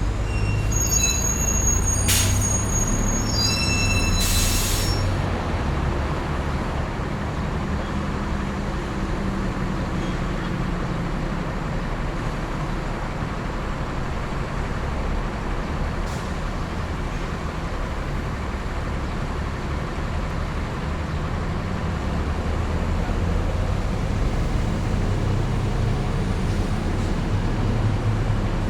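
Downtown city street traffic: a steady low rumble of passing vehicles. Near the start, high squealing tones, with a sharp click about two seconds in and a short hiss a couple of seconds later.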